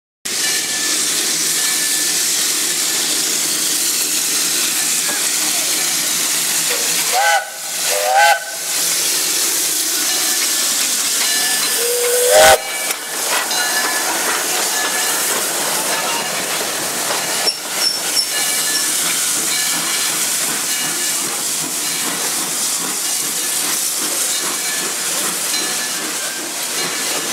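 Steady hiss of steam from Lehigh Valley Coal #126, a coal-burning 0-6-0 steam locomotive, standing with its passenger train. Brief pitched sounds break through about eight seconds in, and again near twelve seconds, ending in a sharp knock.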